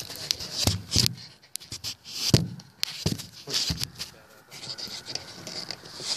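Close rustling and sharp clicks, with people's voices mixed in.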